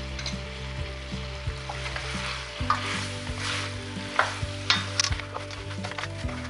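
Mutton frying and sizzling in a steel pan while a spatula stirs and scrapes through the thick masala. Sharper scrapes of the spatula against the pan begin a little under three seconds in and come every half second or so.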